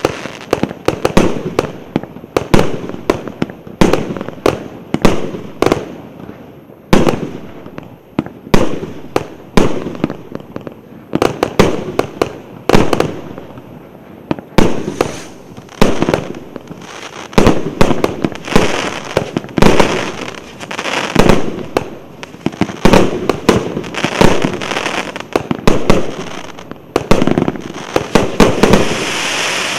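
P8081 'Kosmicheskaya Bitva' 36-shot, 1.25-inch fireworks cake firing in sequence: a loud, continuous run of sharp launch reports and bursts, often close together. From about halfway a crackling hiss joins them, heaviest near the end.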